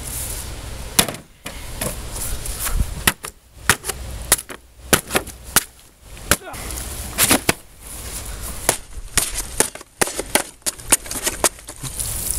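A rapid, irregular series of sharp whacks and knocks, about twenty in all: a hand weapon repeatedly striking targets.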